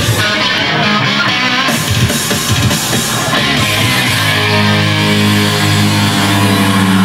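Loud rock music with guitar, running throughout, with steadier held low notes over the last few seconds.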